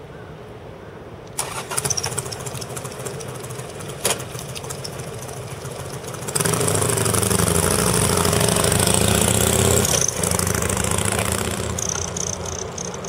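Harley-Davidson Sportster XL1200R's V-twin breathing through an OVER aftermarket muffler: it starts up about a second and a half in and runs, with a sharp click near four seconds. It rises loud at about six seconds as the bike pulls away, dips briefly near ten seconds, and fades as the bike rides off.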